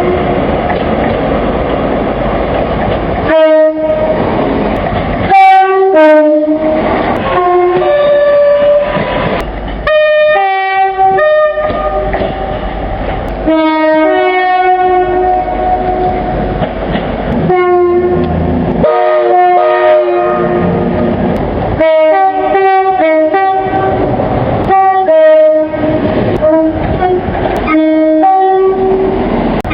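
British train two-tone horns, one clip spliced after another: many short blasts, mostly a high note followed by a lower one, a few held longer, each cut off abruptly. Between the blasts is the steady rumble of trains running.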